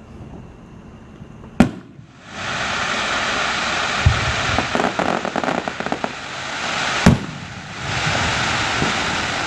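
Fireworks: a sharp bang about a second and a half in, followed by several seconds of dense crackling from bursting shells; a second sharp bang comes about seven seconds in, and the crackling starts up again after it.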